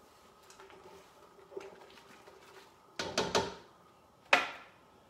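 Cookware and a spoon handled at a stockpot on a gas stovetop: faint light scraping, then a short clatter about three seconds in and one sharp knock, the loudest sound, just after four seconds.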